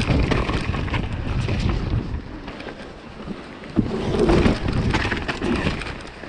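Wind buffeting the action camera's microphone over the rumble of mountain bike tyres on a rough dirt trail, with the bike rattling and knocking over bumps. A sharp knock comes a little under four seconds in, as the bike rolls onto wooden planks.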